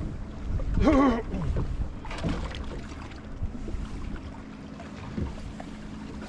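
Low rumble of wind on the microphone and water around a small boat, with a short wavering voice call about a second in. A faint steady hum follows.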